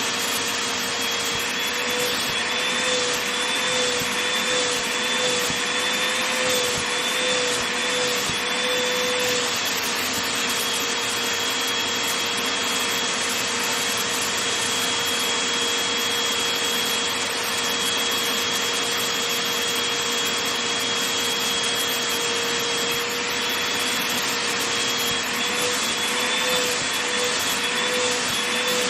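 Vacuum cleaner running on a blanket: a steady rush of suction with a motor whine. The whine wavers in pitch for several seconds early on and again near the end, and holds steady in between.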